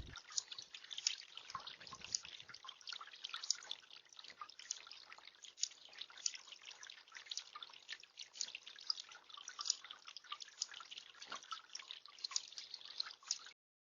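Bird bath fountain water trickling and dripping in a quiet, irregular patter of small plinks. It cuts off just before the end.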